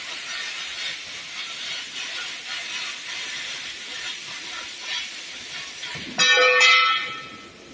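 Steady hissing of steel sheet being cut. About six seconds in comes a loud, ringing, pitched whine that lasts under a second.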